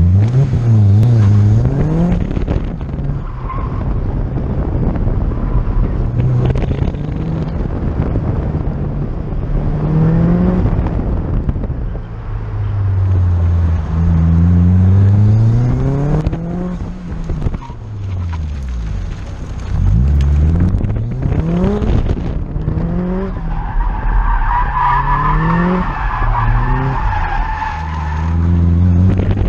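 Car engine heard from inside the cabin while driven hard on an autocross course, its revs climbing and falling back again and again with acceleration, gear changes and lifts between cones. Near the end the tyres squeal for a few seconds through a turn.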